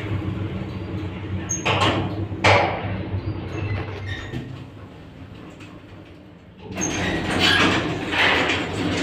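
1998 MLM passenger elevator heard from inside the cab: a steady low hum while it travels, with two knocks a couple of seconds in. The hum fades, then about seven seconds in the doors slide open with a rising rumble and rattle.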